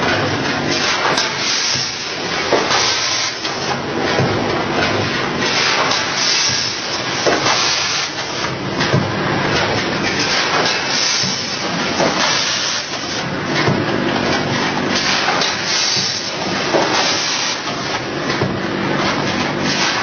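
Automatic rotary powder pouch-packing machine running: a continuous mechanical clatter of many short clicks and knocks, with recurring bursts of high hissing noise.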